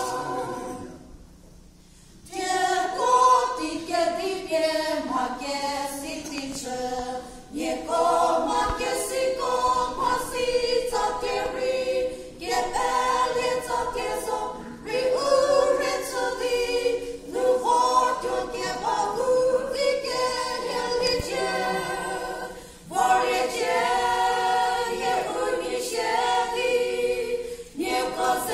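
A small group of women singing a gospel song together a cappella from song sheets, with a short pause about a second in and brief breaths between phrases.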